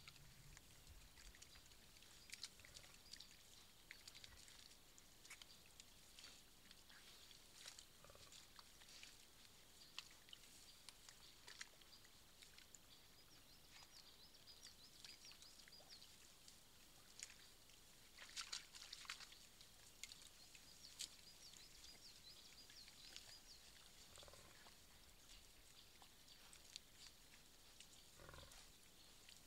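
Wild boar and their striped piglets rooting and feeding in a muddy ditch, heard faintly: scattered rustling and small clicks, with a few soft grunts. A louder cluster of rustling comes about two thirds of the way through.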